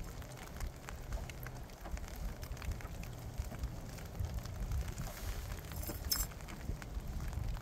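Wind rumbling on the microphone in uneven gusts, with scattered small ticks and taps and a short hiss about six seconds in.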